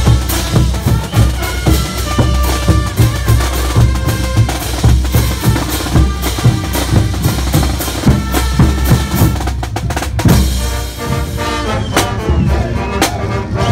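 Street brass band playing a dance tune: large bass drums, a snare drum and pairs of clashed hand cymbals beat a steady, driving rhythm, with trumpets carrying the melody above.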